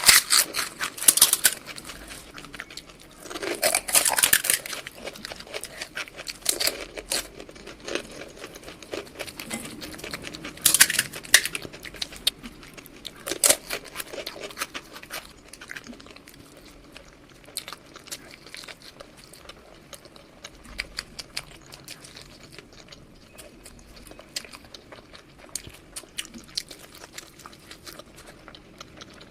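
Close-miked eating sounds: crunchy bites and chewing of junk food. Several louder crunching bursts come in the first half, then quieter, finer chewing clicks follow.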